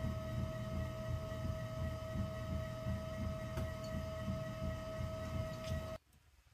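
Electric potter's wheel spinning, with a steady motor whine over a low rumble; it stops abruptly near the end.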